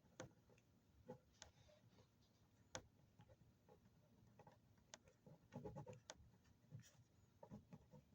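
Faint, scattered small clicks, taps and rustles of handling, with a short cluster of them a little past the middle.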